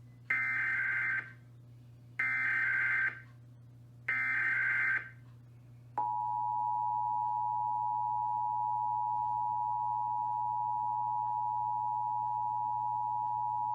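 Emergency Alert System SAME header: three identical bursts of digital data tones about two seconds apart. Then the EAS two-tone attention signal (853 and 960 Hz) sounds steadily for about eight seconds. Together they mark the start of an emergency alert message.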